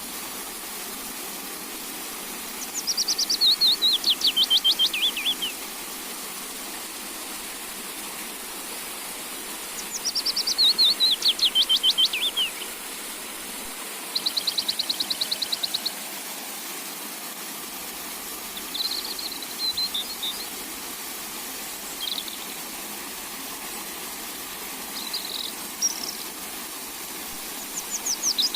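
A songbird singing: a fast trilled phrase about three seconds long that falls in pitch, repeated about seven seconds apart. Between the phrases come an even buzzy trill and a few short chirps, over a steady hiss.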